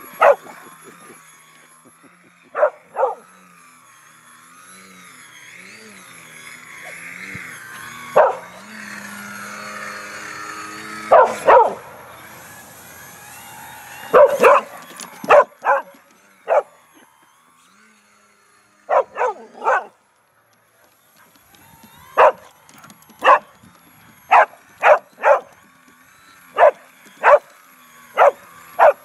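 A dog barking excitedly in many sharp barks, in clusters of two to four, over the fainter rising and falling whine of a radio-controlled aerobatic model airplane's motor in the first half.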